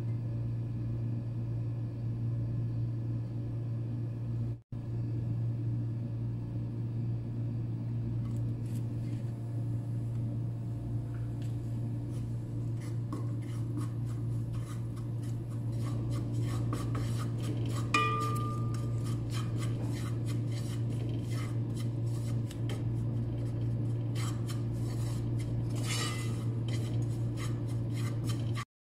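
Wooden spatula scraping and clicking against a metal pan while gram flour is stirred and roasted in oil. The scraping starts about a third of the way in and grows busier, with one short ringing clink about halfway through, over a steady low hum.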